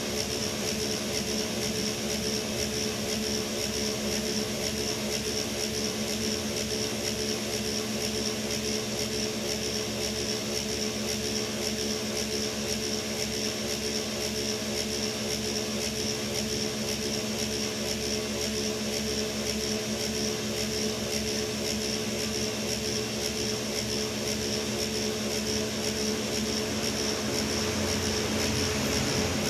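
Dump truck's diesel engine idling steadily: an even, pitched hum with a fast low throb and a faint high whine over it, growing a little louder near the end.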